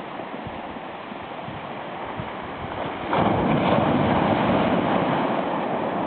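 Small sea waves breaking and washing up a pebble beach. The surf swells suddenly louder about halfway through as a wave comes in.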